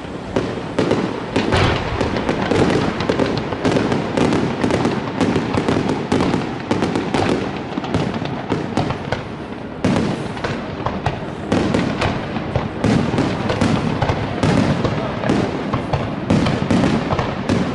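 Aerial fireworks going off in a dense, rapid barrage of bangs and crackling. The barrage thins briefly about halfway through, then bursts back in.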